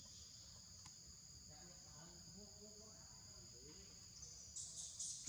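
Steady high-pitched insect chorus droning in the forest, with a few louder pulsing bursts near the end.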